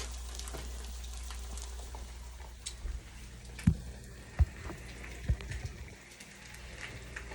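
Eggs frying in a greased skillet, a steady crackling sizzle, with a low hum that fades about three seconds in. Three short dull knocks come in the middle, the loudest sounds here.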